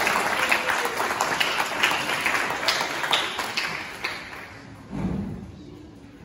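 Audience applauding, dying away after about four seconds. About five seconds in comes a single brief low sound from the stage.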